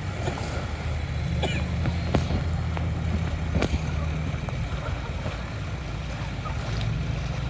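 A small engine running steadily with a low hum, with a few sharp clicks or knocks over it.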